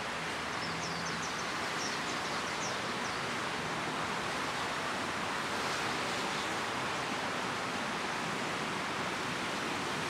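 Steady, even outdoor background hiss, with a quick series of faint, high, thin chirps during the first three seconds.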